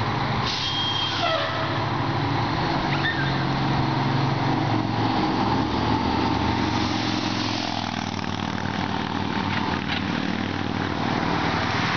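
Fire ladder truck's diesel engine running as it pulls out of the station bay, its low note rising for a few seconds and then easing off. A short high tone sounds about half a second in.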